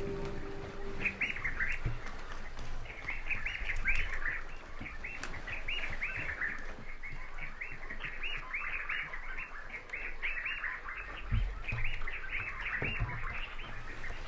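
A chorus of many small birds chirping, with short arched calls overlapping several times a second. A few low thuds come near the end.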